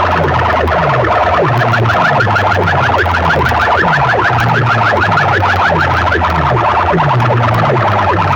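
Competition sound-system speakers blasting an electronic siren-like alarm effect, loud. Quick falling chirps repeat about five times a second over a heavy bass that sweeps downward about one and a half times a second.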